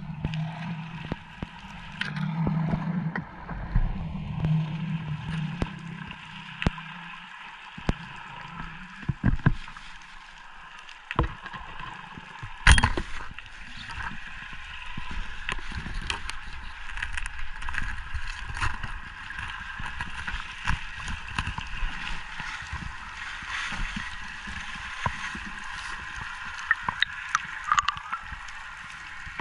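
Underwater ambience: a steady hiss with a scattered crackle of small clicks, and a low hum that fades out after the first few seconds. One sharp knock stands out about halfway through.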